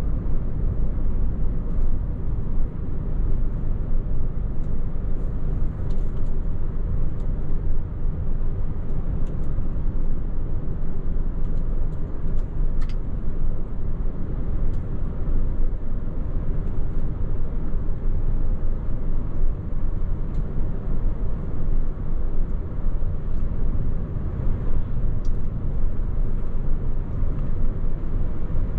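DAF XF truck driving at a steady pace: a continuous low rumble of engine and road noise, heard from inside the cab.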